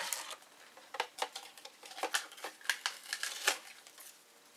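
Felt-tip pens and coloured pencils clattering as they are handled and set into a holder: a quick, irregular run of light clicks and rattles.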